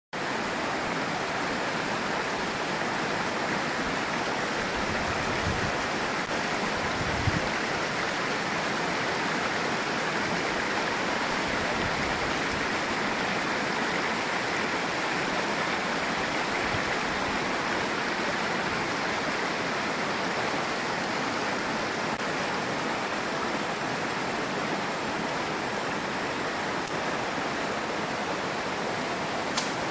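Shallow river running over rocks and riffles: a steady, even rush of water, with a couple of brief low bumps about five and seven seconds in.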